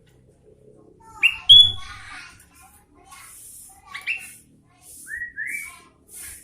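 Sooty-headed bulbul (kutilang) singing: bursts of loud, clear whistled notes, the loudest about a second in, with two short rising whistles near the end and high, hissing notes in between.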